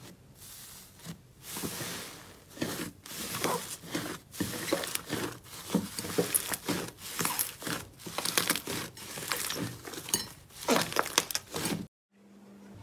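Slime being squeezed and poked close to the microphone: a dense run of small crackles and pops that stops abruptly near the end.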